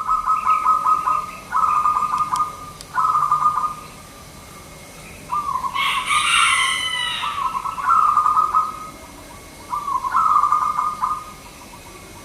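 Zebra dove (perkutut) singing its rhythmic, rapidly pulsed cooing phrases, about six in all with short pauses between. A higher-pitched bird chirp breaks in briefly about six seconds in.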